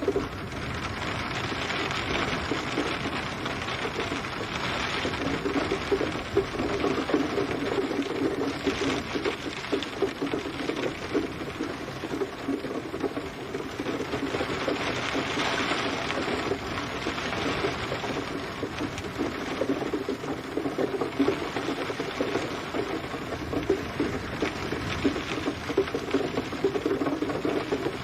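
Steady rain, a dense patter of drops falling on a surface, swelling and easing slightly in waves.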